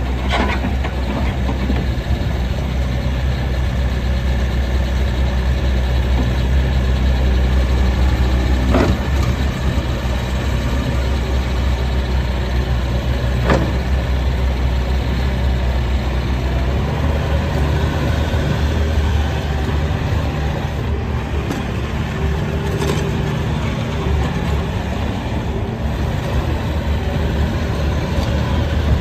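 Diesel engine of a Bobcat T550 compact track loader running steadily, with two sharp knocks about 9 and 13 seconds in.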